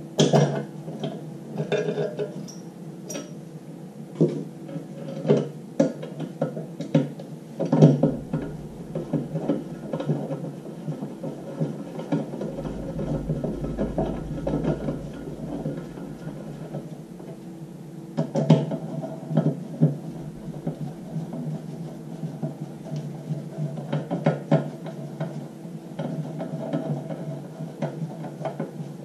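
Irregular sharp metallic clicks and taps of a hand tool working on a filter's metal centre spindle and fastener as the filter is secured, over a steady low tone.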